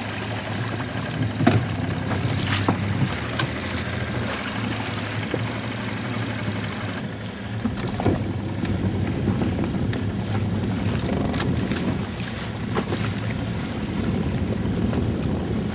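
Wind buffeting the microphone over water washing along a sailboat's hull, with a few scattered knocks.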